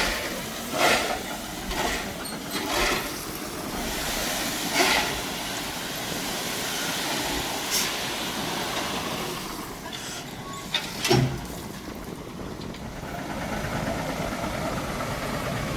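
Heavy earthmoving machinery working on gravel: a steady noisy rush with about half a dozen sharp metallic clanks scattered through it, the loudest about eleven seconds in.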